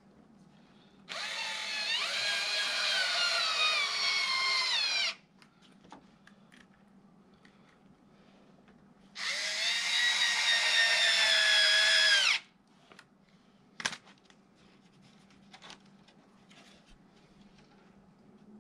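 Power drill running in two bursts of about four and three seconds, its whine falling in pitch toward the end of each; a single sharp click follows a little later.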